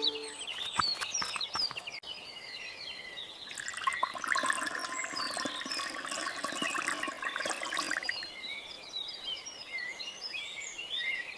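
Birds chirping steadily, with a rush of pouring or splashing water from about three and a half seconds in to about eight seconds in.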